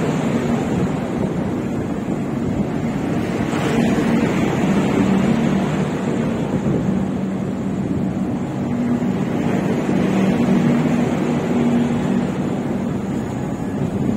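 LHB passenger coaches of the Howrah–SMVB Duronto Express rolling past a platform: a steady rumble and rush of wheels on rails, with no distinct rail-joint clicks.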